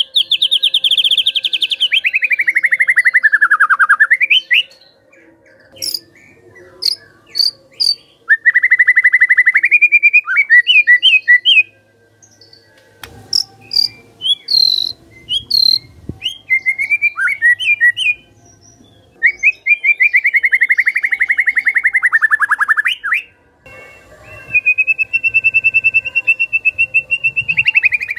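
White-rumped shama singing: long, rapid rattling trills, several sliding down from high to low and one rising, broken by short, sharp whistled notes.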